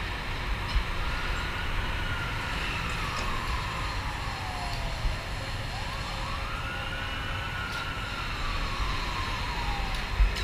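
An emergency-vehicle siren on a slow wail, rising and then falling twice, over a steady low rumble.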